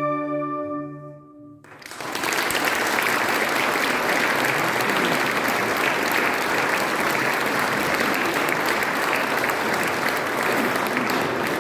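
A flute orchestra's held final chord fades away, and about two seconds in the audience breaks into steady applause.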